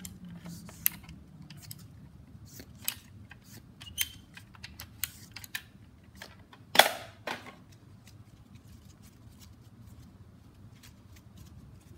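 Scattered small plastic clicks and rattles from a NERF Elite Strongarm blaster and its foam darts being handled, with one sharper, louder clack about seven seconds in.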